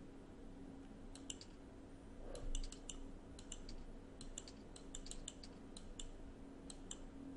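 Faint computer mouse clicking: a loose series of light, sharp clicks, some in quick pairs, over a faint steady low hum.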